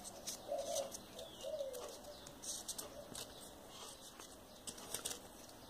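Faint rustling and light ticks of folded paper units being handled and pushed together for 3D origami. A bird calls faintly twice in the background, low-pitched, in the first two seconds.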